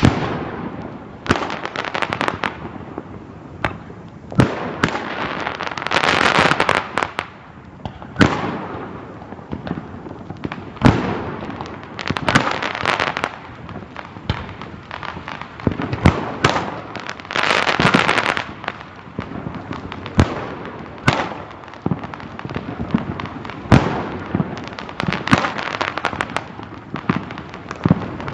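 Aerial fireworks going off: an irregular series of sharp bangs and crackles, with two longer, denser stretches about six and eighteen seconds in.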